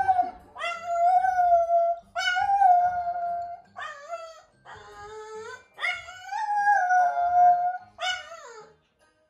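French bulldog howling: a string of about six long, wavering howls, each a second or so long with short breaks between, stopping shortly before the end.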